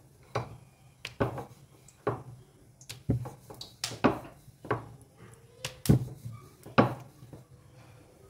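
Rolling pin knocking against a rolling board as a small round of dough is rolled out, a sharp clack about once a second.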